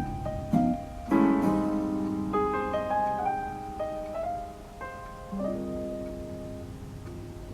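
Piano playing the closing bars of a ballad backing track: rippling runs of notes, a chord struck about a second in, and a final chord held from about halfway and slowly fading.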